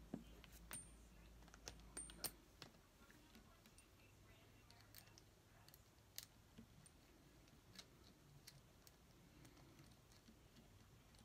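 Faint clicks and taps of small plastic and rubber RC parts being handled as a small wheel is fitted onto the axle of a model truck. A cluster of sharper clicks comes in the first two seconds or so, then only sparse light ticks over a very quiet background.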